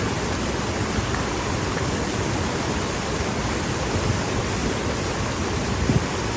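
Rushing water of a rocky canyon creek: a steady, even wash of noise, with a short low bump near the end.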